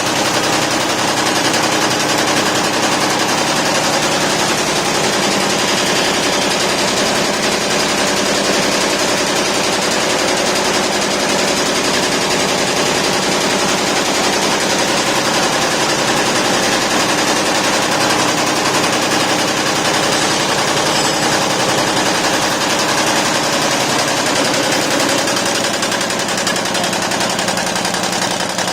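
YBD164 64-needle quilting embroidery machine running, its needles stitching in a fast, steady mechanical clatter that dips slightly in level near the end.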